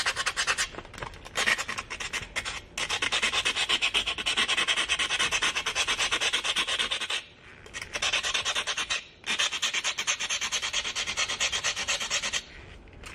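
Fine sandpaper, folded in half, rubbed rapidly back and forth on the chipped rim of a drinking glass, several strokes a second, to smooth the chip. The rubbing breaks off briefly a few times, about seven seconds in, around nine seconds and near the end.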